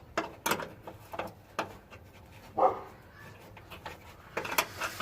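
A dog barks once, briefly, about halfway through, among several sharp clicks and knocks.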